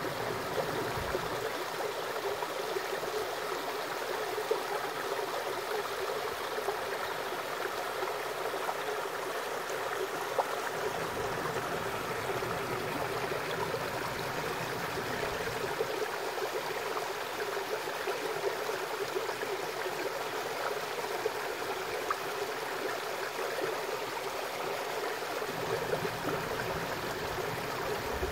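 Stream water flowing steadily over rocks, a continuous rushing and babbling.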